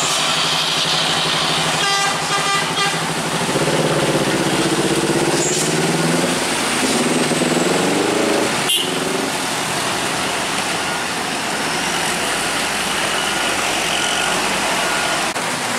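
Heavy trucks labouring up a steep wet mountain bend, engine pitch rising and falling, over a steady hiss of rain and tyres on the wet road. A vehicle horn sounds briefly about two seconds in.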